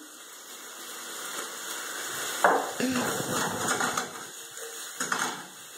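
Chicken pieces sizzling in a frying pan, with a stretch of stirring and scraping in the pan from a little before halfway.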